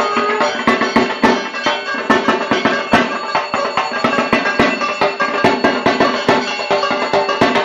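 Dhak, the Bengali barrel drum of Durga Puja, played in a fast, driving rhythm of sharp strokes, over steady ringing tones.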